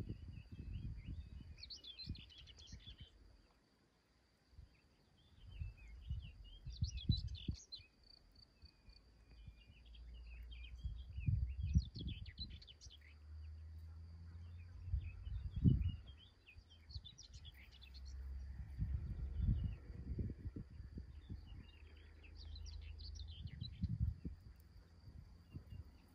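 Songbirds singing short twittering phrases that recur every few seconds. Gusts of wind rumble on the microphone in between.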